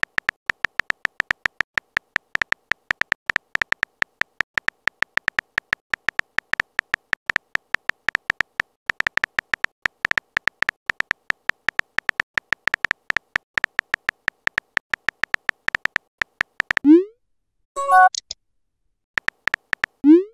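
Chat app's simulated keyboard tap clicks, several a second, as a message is typed out. Near the end the taps stop and a short rising swoop sounds as the message is sent, followed by a brief electronic blip, a few more taps and a second rising swoop.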